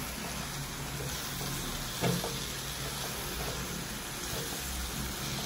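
Chopped spinach and dill greens sizzling in a non-stick pan as a spatula stirs and tosses them, with one sharp knock of the spatula against the pan about two seconds in.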